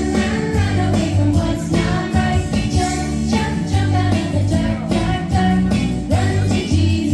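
Background music: an upbeat song with singing over a steady beat.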